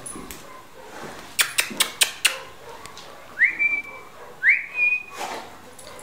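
A person whistles two short notes about a second apart, each rising quickly and then held level, after a quick run of sharp clicks.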